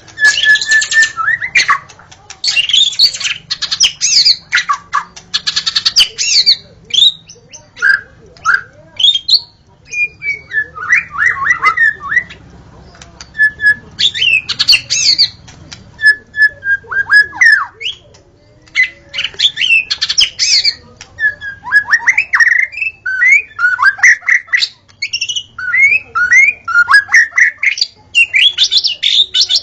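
White-rumped shama (murai batu) singing a long run of varied phrases: clear whistled notes, some held and some sweeping down in pitch, alternating with fast harsh chattering notes, with brief pauses between phrases.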